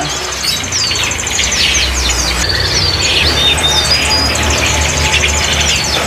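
Many caged songbirds calling at once: overlapping high chirps, fast rattling trills and short down-slurred whistles, over a steady low rumble.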